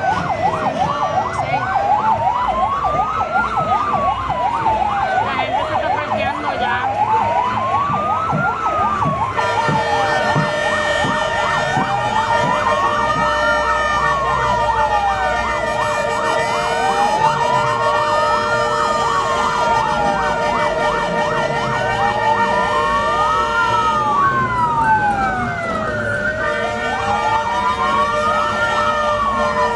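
Emergency-vehicle siren wailing, rising and falling slowly about every five seconds after a faster up-down yelp at the start. Steady held tones, like horns, join in about ten seconds in, break off briefly a little before the end, and return.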